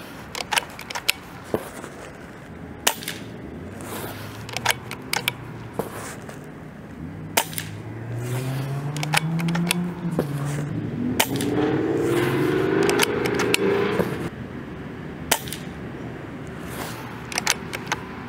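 RTI Priest 2 PCP air rifle firing .25 JSB King pellets: a series of sharp cracks with smaller clicks between them. In the middle a motor sound swells, rising and then falling in pitch, and fades.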